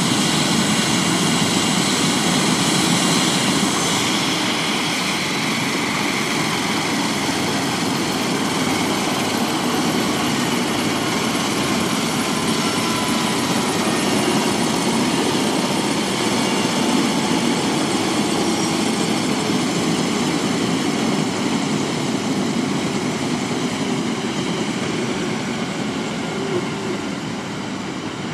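Airbus H145 helicopter on the ground just after landing, its twin turboshaft engines whining over the rush of the turning main rotor and Fenestron tail rotor. The sound is steady and eases slowly over the last several seconds as the engines run down.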